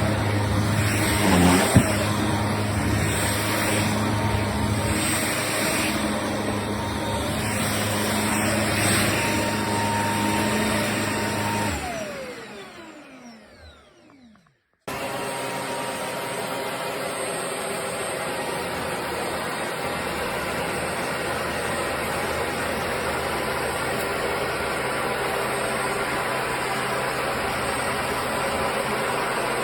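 Shark PowerDetect corded stick vacuum running steadily, then switched off about twelve seconds in, its motor whine falling in pitch as it spins down. After a brief silence it is suddenly running again.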